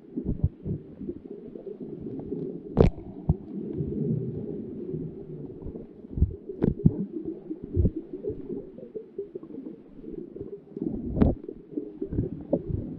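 Muffled underwater handling noise as an octopus grips and drags a GoPro: a steady low rumble of its arms and suckers rubbing the camera, broken by a few sharp knocks against its case.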